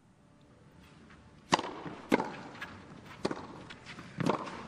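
Tennis ball impacts on a clay court: a series of short, sharp pops as the ball is bounced before a serve and then struck with a racket, against a hushed stadium.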